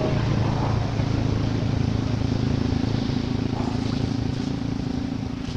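A steady, low engine hum at a fixed pitch, easing off slightly near the end.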